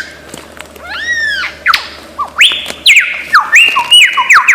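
Lyrebird singing: loud arching whistles about a second in, then a rapid run of descending whistled notes.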